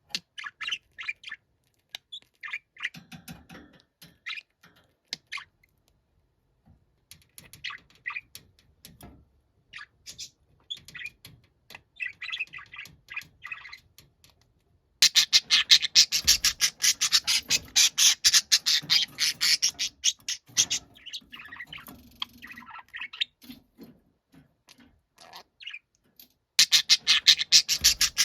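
Budgerigar calling: scattered short chirps and chatter, then about halfway through a fast, loud, unbroken run of harsh squawks. The calls thin out for a few seconds and the rapid squawking starts again near the end.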